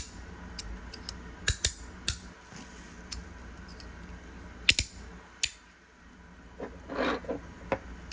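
Sharp, irregular metallic clicks from a magnetic EDC fidget slider being slid and snapped back into place, some coming in quick pairs, with a brief softer rasp near the end.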